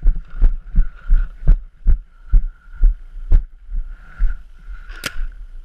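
Running footsteps jolting a body-mounted camera, heavy low thuds a little over two a second. A single sharp crack comes about five seconds in.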